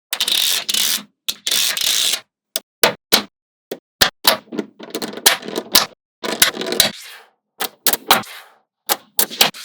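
Small magnetic balls clicking and snapping together as they are placed, with two longer rattling scrapes of balls in the first two seconds, then a run of sharp separate clicks.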